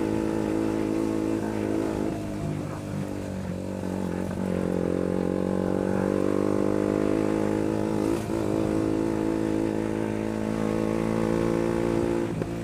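KTM Duke 125's single-cylinder four-stroke engine running at a fairly steady speed, with small dips in engine speed a couple of times. A brief knock is heard about eight seconds in.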